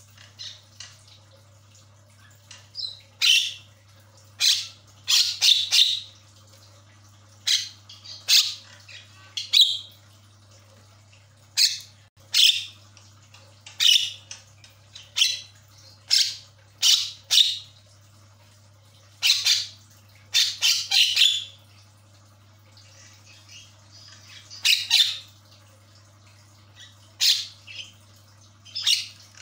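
A caged myna giving loud, harsh squawking calls, short ones repeated every second or two, with a faint steady hum beneath.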